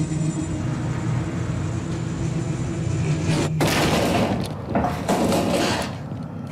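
Two sudden loud blasts about a second and a half apart, each dying away over about a second, over a steady low drone.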